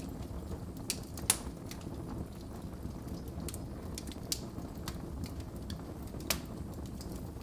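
Wood fire burning in a fireplace: a low steady rumble with irregular sharp crackles and pops, the loudest pop about a second and a half in.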